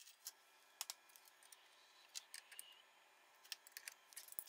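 Near silence with faint scattered clicks and light taps from hands handling and pressing down a sheet of acrylic on the CNC router's spoil board.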